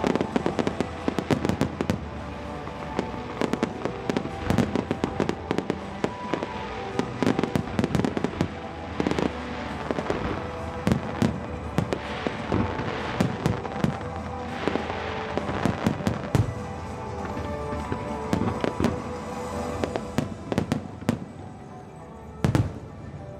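Fireworks going off: a rapid string of sharp bangs and crackles, thinning out about two-thirds of the way through, with one strong bang near the end.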